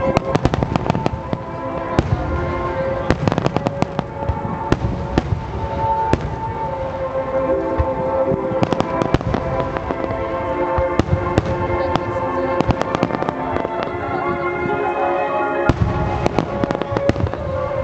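Aerial fireworks bursting and crackling in a dense barrage: many sharp cracks and deep booms come in clusters, easing briefly and then surging again near the end. Music plays steadily beneath the bursts.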